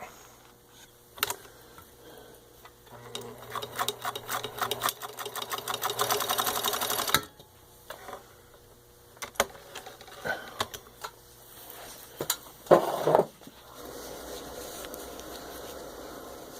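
Pfaff 362 zigzag sewing machine stitching through layers of denim. The needle strokes speed up over about four seconds, then stop abruptly. A few sharp clicks and a short, louder scraping noise follow.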